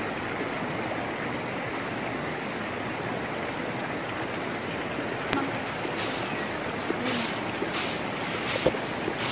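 Steady rushing noise of a combine harvester working a wheat field. About five seconds in it breaks off with a click, and a run of short dry swishes follows: grain being tossed in hand-held winnowing trays.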